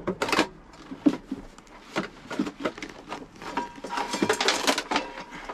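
Plastic dishes and cookware clattering in a low wooden drawer while a frying pan is dug out: an uneven run of clicks and knocks, busiest about four seconds in.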